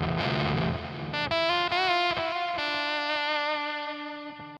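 Electric guitar through a Dolamo D-2 four-transistor fuzz pedal powered at a reduced 6 volts, the starved supply thinning and changing the fuzz tone. A fast low fuzzed riff gives way, about a second in, to held notes bent with vibrato that sustain and slowly fade.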